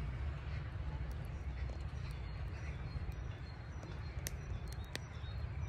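Steady low outdoor rumble with faint scattered ticks, and two sharp clicks near the end, about a second apart.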